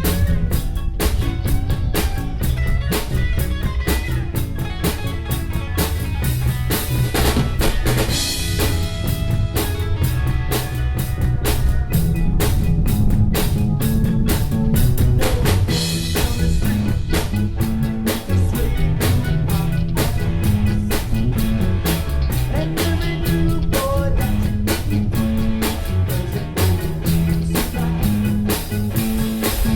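Live rock band playing an instrumental passage: a drum kit keeps a steady, busy beat over a bass line.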